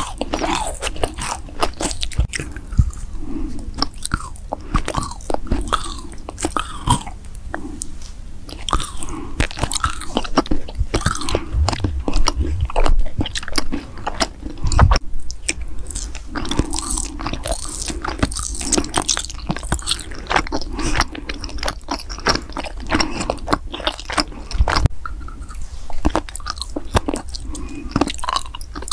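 A person chewing food close to the microphone, mostly with lips closed: a dense, continuous run of small clicks and crunches from the mouth.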